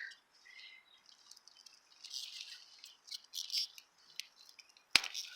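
Faint rustling as asparagus spears are handled, then one sharp snap about five seconds in as a spear is broken off.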